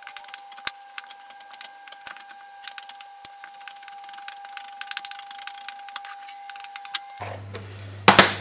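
Chef's knife rapidly chopping roasted cashews on a bamboo cutting board: a fast, dense run of sharp taps, with a thin steady tone underneath, stopping about seven seconds in. A louder knock follows near the end.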